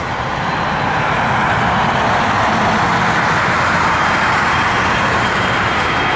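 Airbus A320's twin CFM56 turbofan engines at takeoff thrust: a loud, steady jet roar that swells over the first second as the plane rotates and lifts off, then holds.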